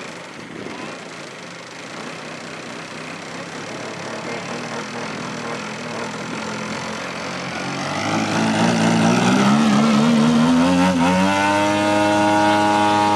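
Large-scale RC RV-4 model aircraft engines running on the ground, first at a low idle, then one is run up: its pitch rises steeply about eight seconds in and holds at a steady high run.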